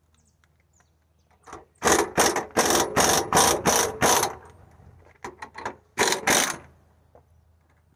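Manual bead breaker on a large tractor tyre being worked with its ratcheting lever: a quick run of about seven loud ratchet strokes, about three a second, then after a short pause a few more, as it presses the bead loose from the rim.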